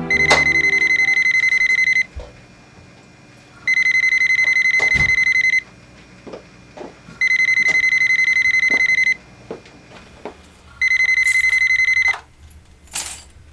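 Corded landline telephone ringing four times with an electronic trill, each ring about two seconds long. The fourth ring is cut short when the phone is picked up. Knocks and footsteps sound between the rings.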